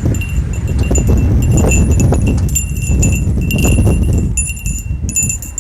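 Loud low rumble of thunder that eases off near the end, with wind chimes tinkling over it.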